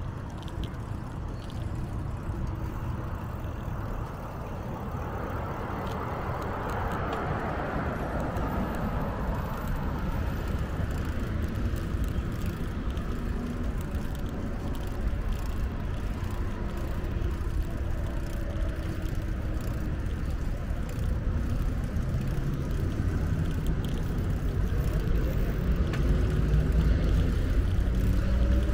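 Steady low rumble of road traffic mixed with wind on the microphone while cycling. It swells as a vehicle passes about six seconds in and grows louder toward the end.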